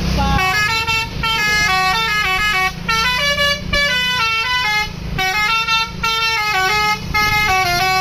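Bus's Basuri 'telolet' musical horn playing a fast melody of short stepped notes in several phrases with brief breaks, over the low rumble of the bus engine.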